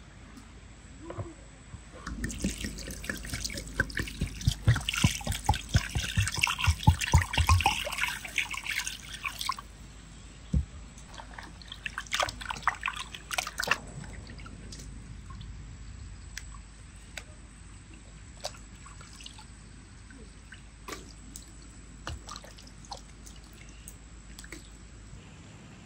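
Water splashing and sloshing in a plastic bowl as raw chicken breasts are rinsed and rubbed by hand, busiest in the first several seconds with a shorter burst a little later. After that come fainter drips and light ticks as the wet pieces are lifted out and laid in a metal colander.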